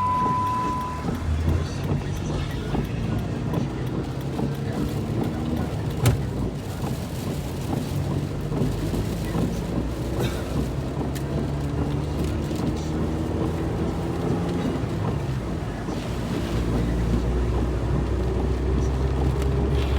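A vehicle driving, its engine repeatedly climbing in pitch as it accelerates, over steady road and wind rumble that gets louder near the end. A short steady beep sounds for about a second at the very start.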